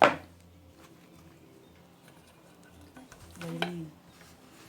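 Kitchenware being handled: a sharp knock at the start, then quiet handling and a short low murmur about three and a half seconds in.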